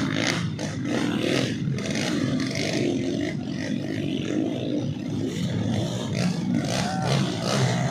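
Dirt bike engines running, mixed with the voices of spectators.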